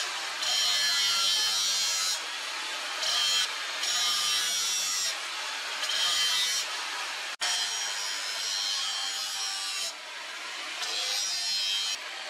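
Power grinder's abrasive disc grinding a forged steel spear blade made from a wheel bearing race. The disc bites in repeatedly in passes of half a second to two seconds, with lighter running between them, and the sound breaks off for an instant about halfway through.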